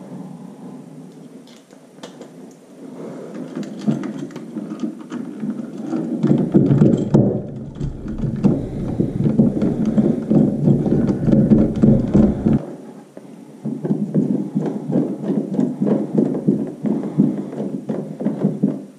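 Stiff electrical wires and devices being pushed into a wall box and their mounting screws tightened with a screwdriver: close scraping, rubbing and clicking, heaviest for several seconds in the middle.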